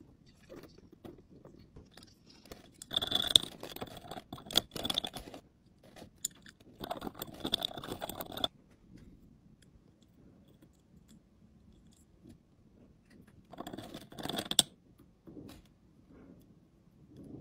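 Coloured sand spooned into a small drinking glass and poked into shape with a wooden toothpick: three bursts of gritty scraping and trickling a few seconds apart, with faint scratching in between.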